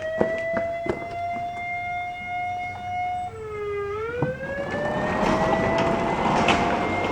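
Siren signalling a fire call: the tone winds up in pitch and holds, drops off about three seconds in, then winds up and holds again. A few knocks sound along the way, and a rushing noise builds over the second half.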